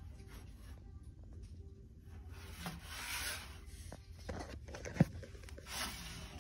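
A ceramic figurine being handled on a store shelf: rubbing and scraping as it is turned over and slid, with one sharp knock about five seconds in as it is set down.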